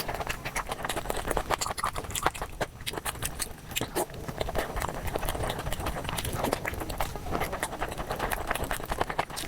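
Eating sounds played at four times speed: a fast, dense run of sharp clicks and crunches from chewing.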